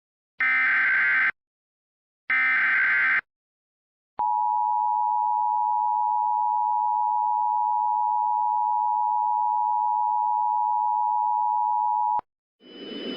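Emergency Alert System SAME header: two one-second bursts of warbling data tones a second apart. About a second later the EAS two-tone attention signal comes in, a steady beep held for about eight seconds, which cuts off sharply. Near the end a rushing noise with a steady high whine fades in.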